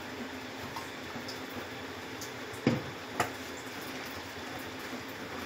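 Steady low kitchen background hiss, with two short knocks about half a second apart a little past halfway, from the plastic oil bottle being handled and set down after pouring oil into the kadai.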